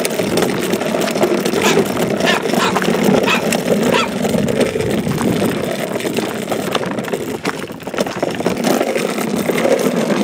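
Hard plastic wheels of a child's foot-pushed ride-on toy motorbike rolling over rough asphalt, a steady rumble, with a few light ticks about two to four seconds in.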